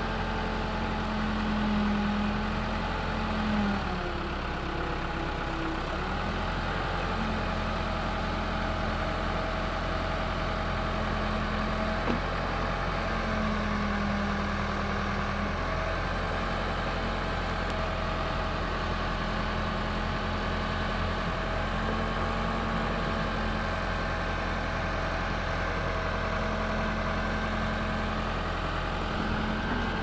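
Case backhoe loader's diesel engine running steadily while the backhoe arm digs and swings sand, with a humming tone that comes and goes in stretches of a few seconds as the arm is worked. A single knock about twelve seconds in.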